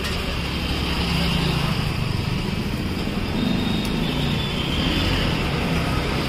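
Steady street traffic, a motor vehicle engine running nearby with a low wavering hum, over a continuous hiss.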